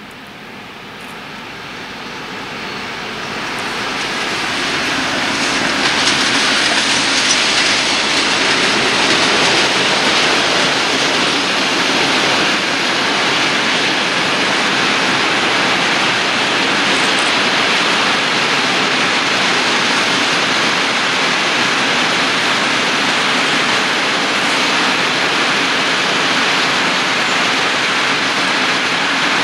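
A freight train of open wagons behind an M62-type diesel locomotive rolls past on the rails. Its noise grows louder over the first six seconds as the train draws level, then holds as a steady, even roll of wagon wheels on the track.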